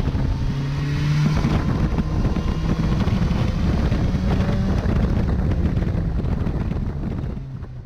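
A vehicle engine running steadily while on the move, mixed with wind noise on the microphone. The engine note shifts in pitch a couple of times, and the sound fades out near the end.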